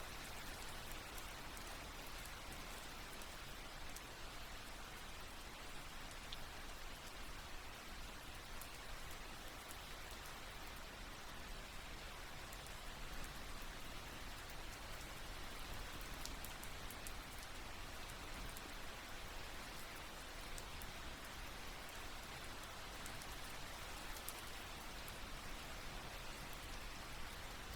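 Soft, steady rain: an even hiss with faint scattered drop ticks.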